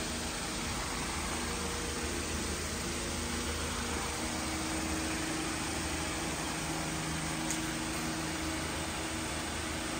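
Electric floor fan running steadily: an even rush of air with a faint low motor hum.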